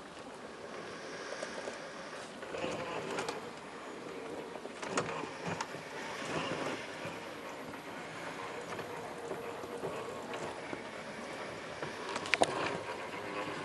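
Traxxas TRX4 1/10-scale RC crawler's electric motor and geared drivetrain whining at crawling speed, with tyres scrabbling over rock and a few sharp knocks, the loudest near the end.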